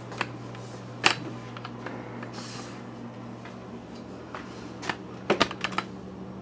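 Scattered clicks and knocks of a video camera being handled and repositioned, with a quick run of clicks near the end, over a steady low hum.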